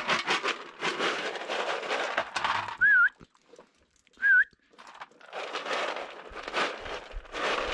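A person whistles two short warbling calls, about a second and a half apart, calling dogs to their food. Rustling noise comes before and after the whistles.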